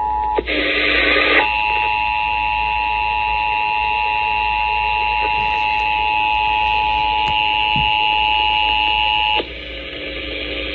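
Emergency Alert System attention signal: a loud, steady two-tone alarm. About half a second in it is broken by a click and a second of harsh noise, then it resumes and cuts off suddenly about nine seconds in, leaving a hiss.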